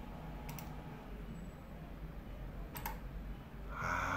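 A computer mouse button clicked twice, each a short sharp click, about two seconds apart. Near the end there is a brief, louder noisy burst.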